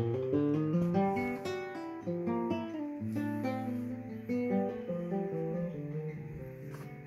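Acoustic guitar music: a run of single plucked notes and strummed chords that fades gradually toward the end.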